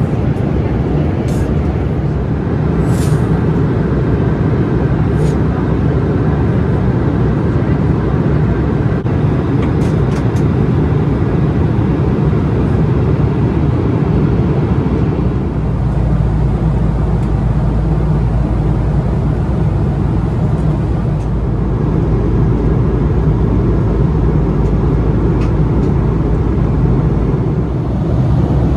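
Steady cabin noise of an Embraer E190 airliner in flight, the engine and airflow rumble heard from a passenger seat. A few faint clicks come in the first seconds, and the low rumble grows stronger about halfway through.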